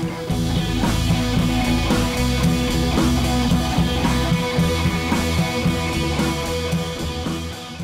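Background music with a steady beat, fading out near the end.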